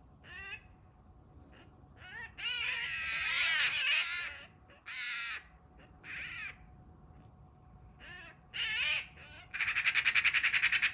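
Eurasian magpies giving harsh screeching squawks, the longest about two seconds in, then a rapid rattling chatter near the end. These are the distress and alarm calls of a magpie pinned by an attacking Eurasian sparrowhawk.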